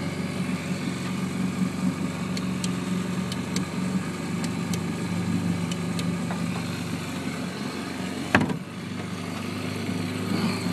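An engine idling steadily with a low, even hum, with a few faint light clicks and one sharp knock about eight seconds in.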